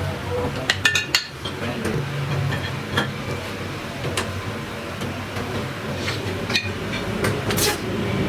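Scattered sharp metallic clinks and knocks, several close together about a second in, over a steady low machine hum.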